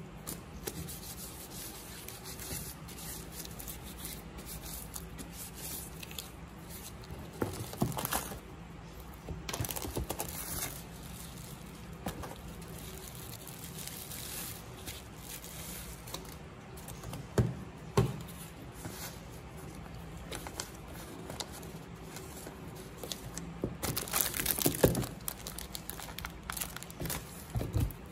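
Close-up hand and tool work on a crushed smartphone: scattered scraping, crinkling and light clicks, louder in short bursts a few times, over a faint steady low hum.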